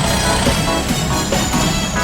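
Upbeat electronic background music with a steady beat and a sustained high tone over it.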